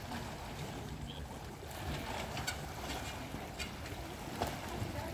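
Seaside ambience: a steady low rumble and hiss of wind and sea water against the rocks, with a few faint clicks.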